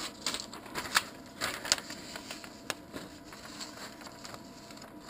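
A sheet of paper rustling as it is handled and slid over a 3D printer's build plate. A scatter of light, irregular clicks and crinkles comes over the first three seconds or so, then thins out.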